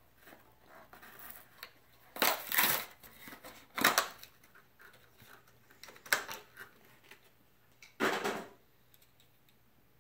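Packaging of a Majorette diecast toy truck being torn open and handled: several short bursts of rustling and ripping, the loudest a little over two seconds in and near four seconds.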